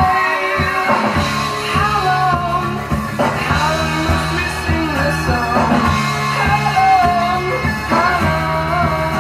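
Rock song with a lead singer over bass, guitar and drums, played back from a vinyl record on a JVC L-E600 linear-tracking turntable.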